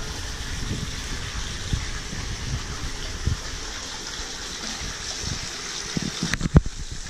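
Steady rush of water running into a small swimming pool, with irregular low thumps on the microphone and a few sharp clicks near the end.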